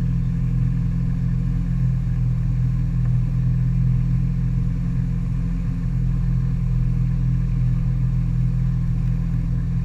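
Tow boat's engine running steadily at speed while pulling a skier, with water rushing past the hull.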